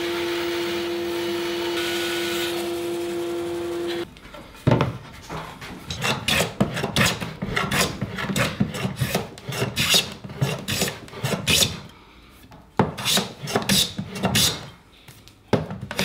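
A bandsaw runs with a steady hum as it cuts through a hardwood block, and the sound stops abruptly about four seconds in. Then a Stanley hand plane is pushed across the wood in a run of short shaving strokes, with brief pauses about twelve and fifteen seconds in.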